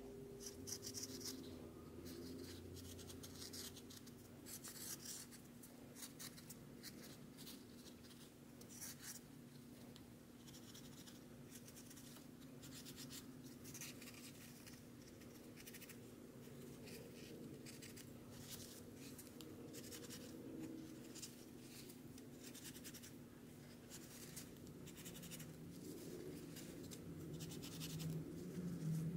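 Faint, irregular scratching and rustling of felt fabric as it is handled and worked with a pencil, over a steady low hum.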